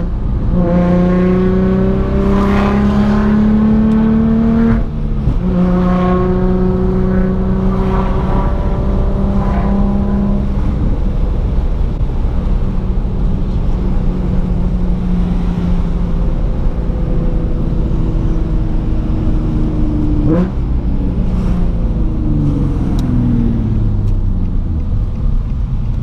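Nissan 350Z's 3.5-litre V6, heard from inside the cabin while driving. The engine note rises under acceleration, drops at a gear change about five seconds in and rises again, then holds steady. A little after twenty seconds it falls away as the car slows.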